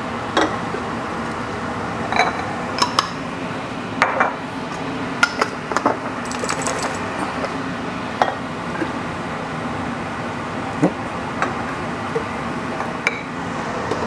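Glass passata bottles and their metal screw-on lids clinking and knocking as they are handled, shaken and emptied into a pot. The knocks come irregularly, about a dozen over the stretch, over a steady background hiss.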